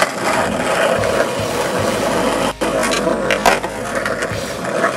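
Skateboard wheels rolling over rough asphalt, a steady gritty rumble, with a brief break about two and a half seconds in and a couple of sharp knocks around three and a half seconds.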